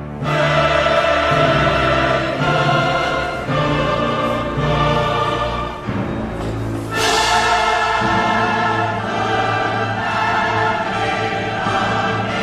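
Background music: choral singing over an orchestral accompaniment, with a fresh swell about seven seconds in.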